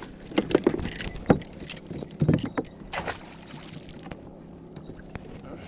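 A cluster of sharp knocks, clicks and rattles from handling on a plastic fishing kayak, lasting about three seconds, then a few faint taps.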